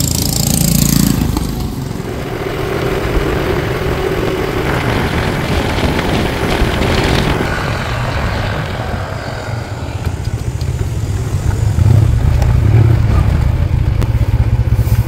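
Motorcycle running while being ridden along a road, a steady noisy rumble with wind on the microphone. It gets louder about twelve seconds in.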